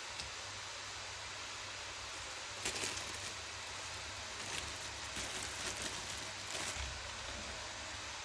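A steady hiss, with a few seconds of rustling, crackling handling noise starting about two and a half seconds in and stopping near the end.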